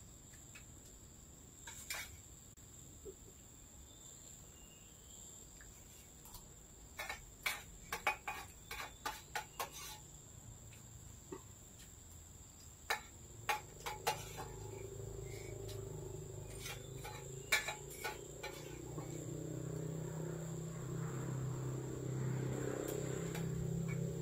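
A steady high-pitched insect drone from the rainforest, with clusters of sharp clinks of metal spoons on plates. From about halfway a low droning hum comes in and grows slowly louder.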